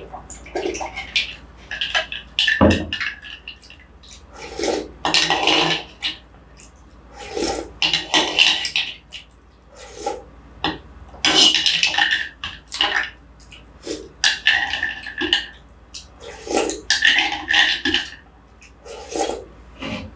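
Close-miked slurping and sipping of iced shwe yin aye, a Burmese coconut-milk dessert, drunk from a bowl and spooned up, in repeated bursts of about a second. Short clicks of a spoon against the bowl come between the sips, and a single knock sounds about three seconds in.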